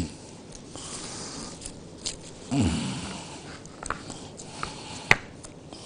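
Gloved hands working kleicha dough on a counter: light clicks and taps, with one sharper tap about five seconds in. A short falling hum from the cook comes near the middle.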